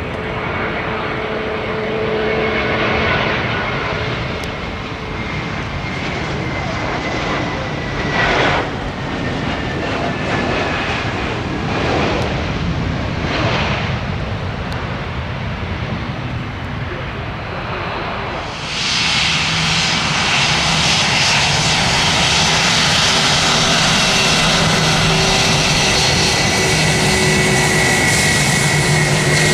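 Jet airliner's engines on approach to land: a steady rumble with a high whine that slowly falls in pitch. About two-thirds of the way in the sound jumps suddenly louder and brighter, and stays that way.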